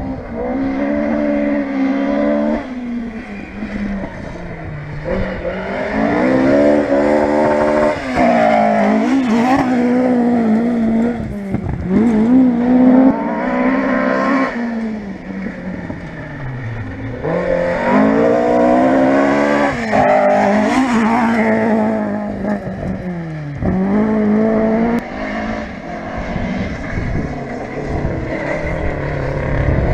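Historic rally car engine driven hard on a stage. Its pitch climbs and drops again and again as it shifts through the gears and comes off the throttle for corners.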